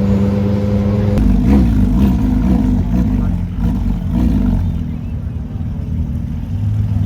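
Sports car engine running steadily, then rising and falling in pitch several times over about three seconds as the throttle is blipped, before settling back to a lower, steady note.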